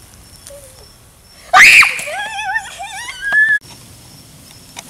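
A sudden loud scream about a second and a half in, its pitch shooting up and falling back, followed by a warbling, wavering cry that cuts off abruptly.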